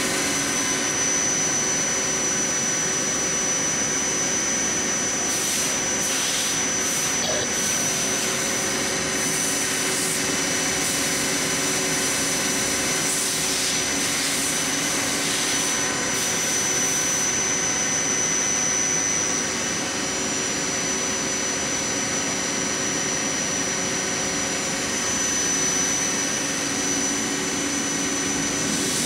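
Mori Seiki SL-3H CNC lathe's spindle and chuck running steadily at 1500 RPM in high gear: an even mechanical hum with a high, steady tone over it.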